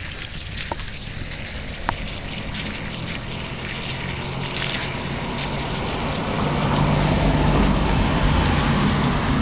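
Water from a laminar flow fountain's jet landing and splattering on the ground, a steady wet hiss. A low rumble builds and grows louder over the second half.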